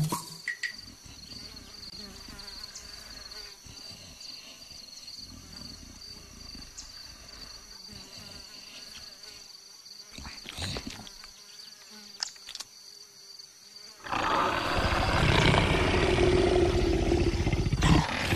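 Savanna ambience with a steady, thin, high insect buzz, then about 14 s in a cartoon leopard gives a loud big-cat growl lasting about four seconds.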